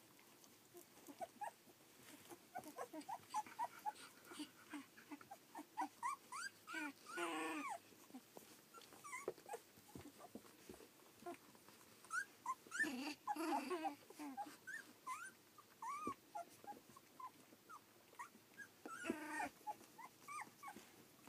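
Fifteen-day-old collie puppies squeaking and whimpering in many short, high cries, with three louder, longer cries about seven, thirteen and nineteen seconds in.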